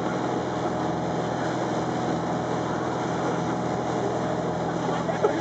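Speedboat engine running steadily at speed, a constant hum under the rush of wind and water, heard from on board.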